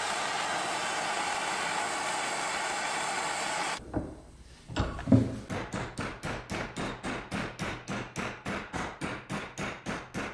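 Handheld gas torch hissing steadily as it heats a stainless steel exhaust hanger rod, cutting off about four seconds in. After a knock, a fast, even run of hammer blows, about four or five a second, bends the red-hot rod clamped in a bench vise.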